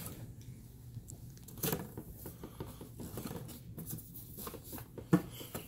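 Cardboard vacuum box being cut open with scissors and handled: scattered short scrapes, tearing and rustling of cardboard and tape, with one sharp knock about five seconds in.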